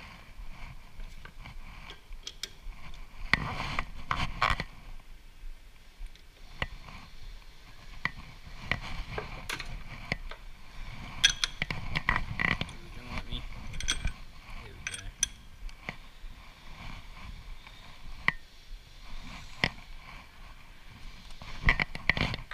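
Irregular metal clicks, clinks and scrapes from tooling being handled on a metal lathe: the quick-change tool post's locking lever being worked and a tool holder taken off and refitted.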